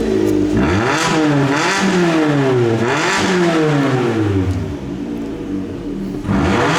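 Fiat 500 engine with its muffler cut off, revved in several quick blips that rise and fall back, loud and raw through the open exhaust pipe.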